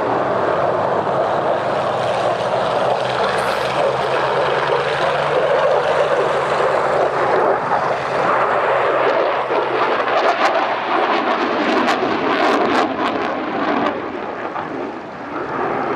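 Eurofighter Typhoon's twin Eurojet EJ200 turbofans, a steady loud jet engine noise from the fighter flying its display. A run of sharp crackles comes about ten to thirteen seconds in, and the noise eases slightly near the end.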